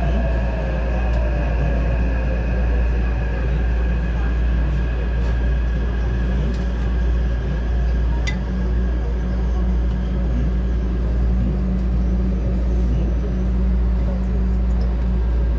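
Taipei Metro C371 train heard from inside the car as it brakes into a station and stops. A steady low rumble runs throughout, under a whine that falls in pitch over the first few seconds as the train slows. There is a single click about eight seconds in.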